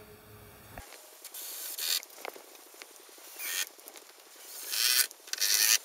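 Tape measure blade being pulled out and let back in: several short zipping, whirring bursts a second or two apart.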